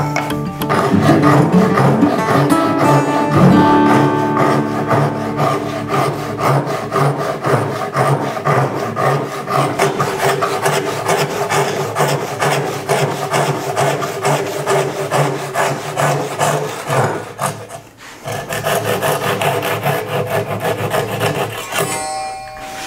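Japanese hand saw cutting the edge cheeks of a tenon in oak: fast, continuous rasping saw strokes, with a brief break about three-quarters of the way through. Acoustic guitar music plays underneath.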